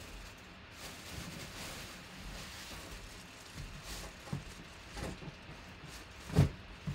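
Cardboard box being handled and its top flaps opened, with soft rustling and a few light knocks; the loudest thump comes about six seconds in.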